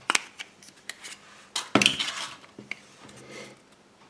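Hands handling an opened Kinder Surprise chocolate egg and its yellow plastic toy capsule: a few sharp clicks and knocks, with a louder crackling knock just under two seconds in.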